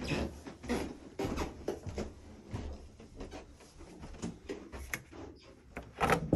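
Irregular light knocks and clicks, a few a second, with a louder knock near the end.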